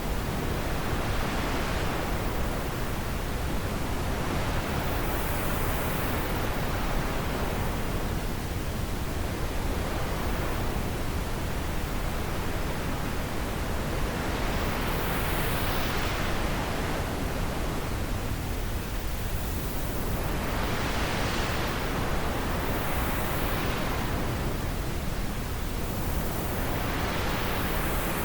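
Wind blowing: a steady rushing hiss that brightens and eases in gusts every few seconds.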